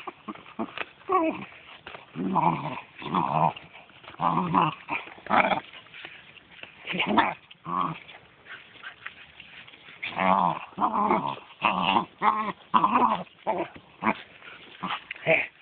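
Dog making a run of short, pitched growling and whining noises while it plays with a ball, each noise under a second long with brief gaps between them.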